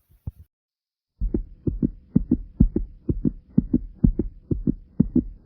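A fast human heartbeat, recorded close up after exercise: quick, even lub-dub thumps that begin about a second in after a brief scuffle and gap, with a faint steady hum underneath.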